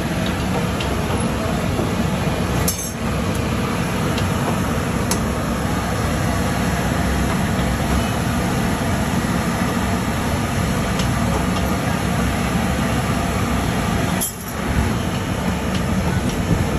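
Steady, loud background noise of a busy street tea stall, with a few light clinks of metal utensils.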